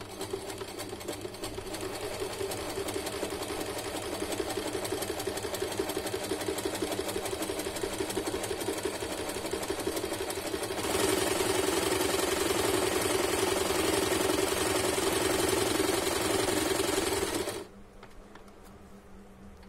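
Usha Janome Stitch Magic electric sewing machine, run from its foot control, sewing a decorative embroidery stitch with a lengthened stitch, needle strokes in a steady rapid rhythm. It gets louder about eleven seconds in, then stops abruptly a couple of seconds before the end.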